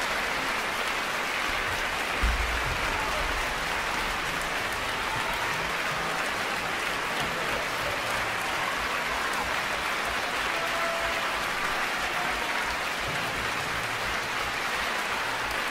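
Concert audience applauding steadily, with a single low thump about two seconds in.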